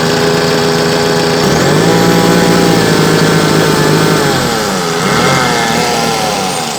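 Perkins diesel engine running after a repair: it runs steadily, is revved up about a second and a half in and held, then drops back, with one more short blip of the throttle near the end.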